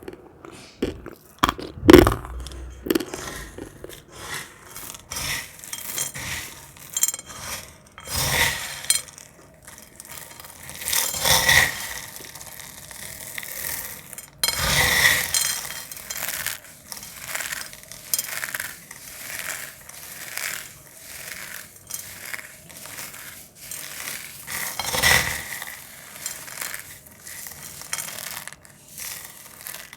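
Brittle dried cornstarch crunching and scraping as it is handled: a string of irregular crackles and scrapes, with a few louder crunches.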